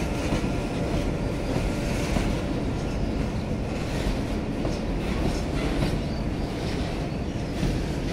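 Freight train of BTPN petroleum tank wagons rolling past with a steady rumble and clatter of wheels on the rails, and faint clicks as the wheels cross rail joints.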